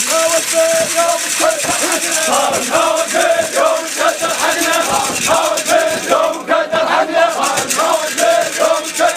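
A crowd of men chanting a hosa, the Iraqi rhythmic war chant, together and without a break, over the noise of the packed crowd.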